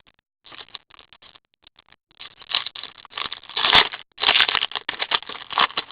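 Trading cards being handled and flipped through, a papery rustling and crinkling that gets busier and louder about two seconds in.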